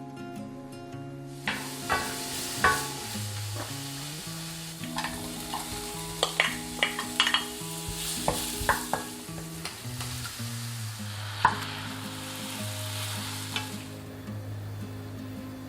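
Food sizzling as it is stir-fried in a pan, with repeated sharp clicks and scrapes of a utensil against the pan. The sizzle starts about a second and a half in and dies away near the end, over background music.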